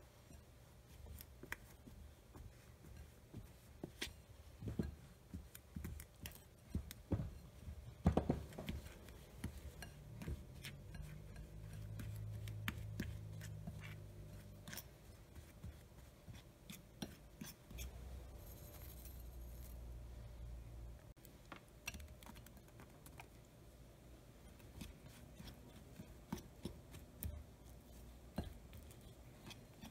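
Metal fork scraping and clicking against a ceramic bowl, cutting cold butter into flour with irregular light taps and scrapes, the sharpest clicks about eight seconds in.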